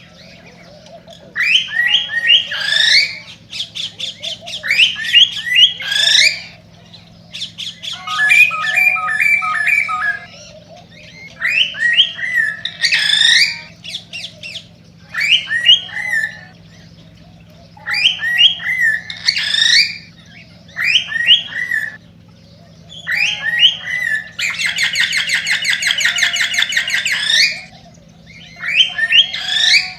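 Male cockatiel's excited breeding song: repeated phrases of quick rising chirps and squawky whistles every couple of seconds, with a long, rapid, buzzy trill near the end. A faint steady low hum runs underneath.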